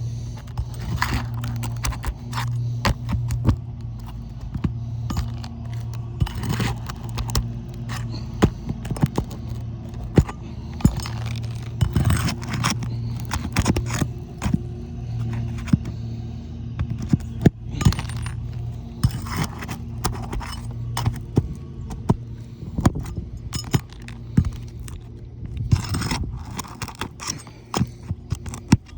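Roofing nails being worked loose from asphalt shingles: irregular metal scrapes and sharp clicks throughout, over a steady low hum.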